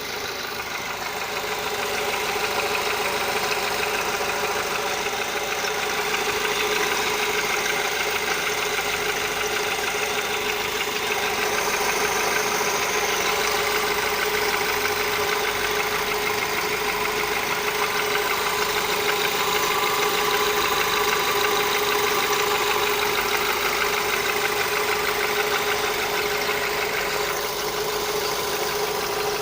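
VW Polo engine idling steadily with a steady hum that the owner suspects comes from the water pump (coolant pump).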